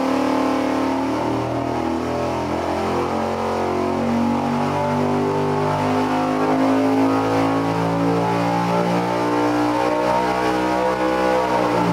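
Roughly 800-horsepower carbureted engine making a wide-open-throttle dyno pull, its pitch rising steadily as the revs climb toward about 7,000 rpm. It is running Autolite spark plugs closed up to a 20-thousandths gap.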